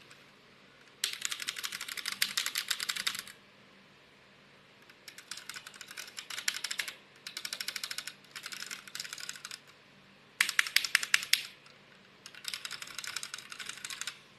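Typing on a mechanical keyboard: five bursts of rapid key clicks with short pauses between them, the fourth burst the loudest.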